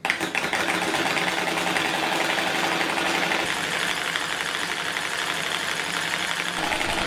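Small four-coil V-type solenoid engine running, its plungers and crank clattering in a rapid, steady rhythm.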